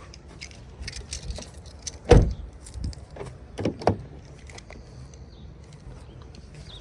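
Scattered clicks and knocks, the loudest a single thump about two seconds in, followed by two more knocks just before four seconds.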